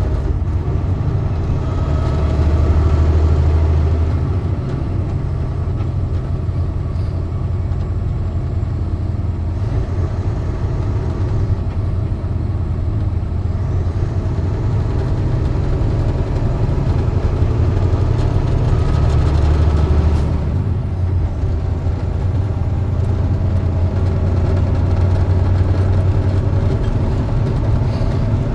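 Truck engine running steadily with road noise, heard from inside the cab; the low engine hum swells briefly twice.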